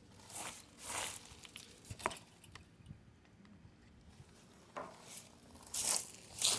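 A handful of short, irregular crunching and rustling noises, about six, scattered unevenly over a quiet background.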